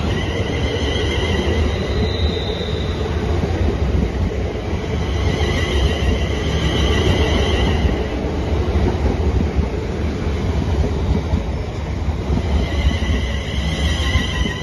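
A train running past with a steady low rumble, and high-pitched squealing tones that come and go three times.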